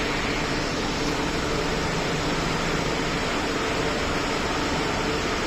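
Elgi EG22 rotary screw air compressor running: a steady, even whirring noise of its motor and cooling fans, with a faint steady hum underneath.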